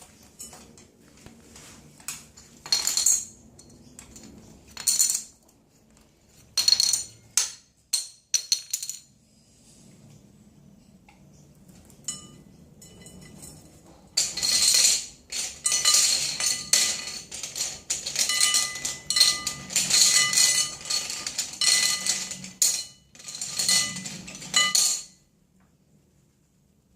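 Pet caique parrot making noise in short, sharp, high-pitched bursts: a few scattered ones at first, then a long busy run from about halfway in until shortly before the end.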